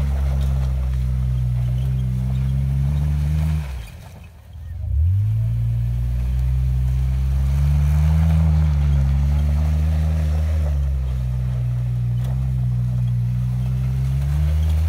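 Jeep Wrangler's engine held at high revs as the Jeep spins in circles, its pitch drifting gently up and down. About four seconds in the throttle is let off: the engine note falls away for about a second, then revs back up.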